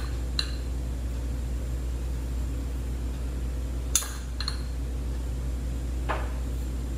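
A metal spoon clinking lightly against a drinking glass a few times, the sharpest clink about four seconds in, over a steady low room hum.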